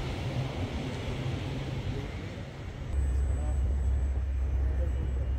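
Wind buffeting the microphone outdoors, a low rumble that gets heavier and steadier a little past halfway.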